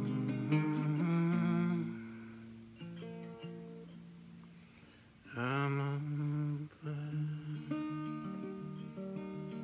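Acoustic guitar playing chords, with wordless humming over it twice: near the start and again a little past the middle.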